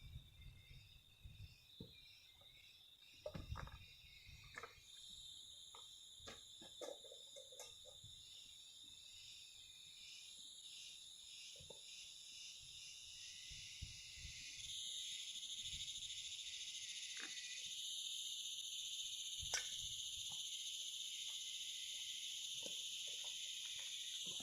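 Rainforest insect chorus: a steady high-pitched drone that swells about five seconds in and again around fifteen seconds, with scattered soft knocks and taps in the first few seconds.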